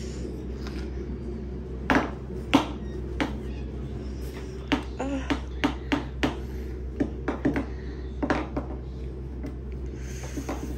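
Scattered sharp clicks and light clinks of small hard objects being handled over a steady low hum: two louder knocks about two seconds in, then a quicker run of clicks in the middle.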